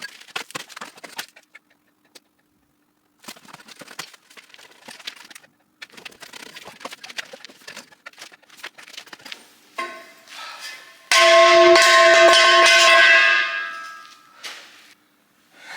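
Light metallic taps and clatter, then a steel boiler fire tube giving a loud metallic ring for about three seconds as it comes free of the tube plate.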